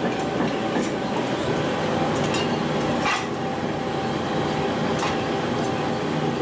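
Forge-shop ambience: a steady drone of heavy machinery, with several short, sharp metallic noises every second or two.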